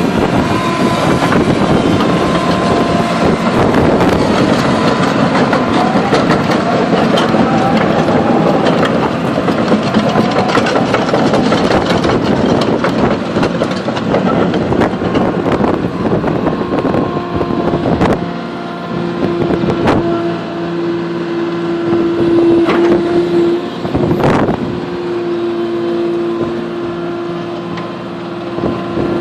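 Komatsu PC220LC-6 excavator running and operating: steady engine and hydraulic noise with several sharp clanks. About two-thirds of the way through, a steady whine comes in and holds to the end.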